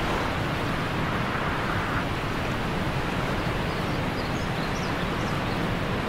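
Steady rush of a waterfall, a constant even noise of falling water. A few faint high chirps come in about four to five seconds in.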